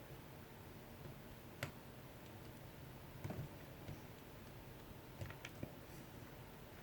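A few faint, separate clicks from a small precision screwdriver working at the tightly seated M.2 SSD retaining screw inside a laptop.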